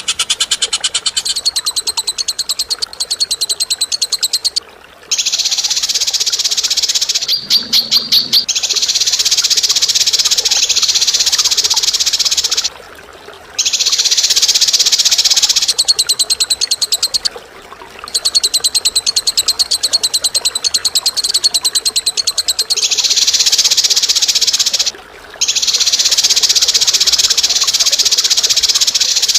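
Bird calls used as training song: long bouts of harsh, rapid-fire chattering trills, each several seconds long with short breaks between them, and a brief different ringing call about eight seconds in.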